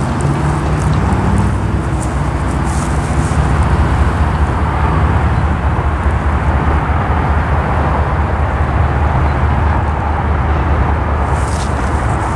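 Road traffic at a grade crossing: cars and a pickup driving past, tyre noise rising and falling over a steady low engine rumble.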